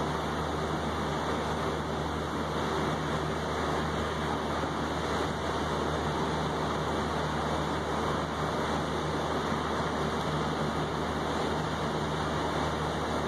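Steady rain falling on a balcony's wet tabletop and railing, an even, unbroken hiss with a low steady rumble beneath it.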